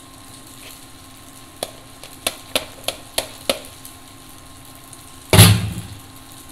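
Six sharp metallic taps, a little over two a second, as a stainless-steel chinois strainer is knocked over the pan to shake out the last pasta. Near the end, one loud thump with a short ring as something is set down on the counter.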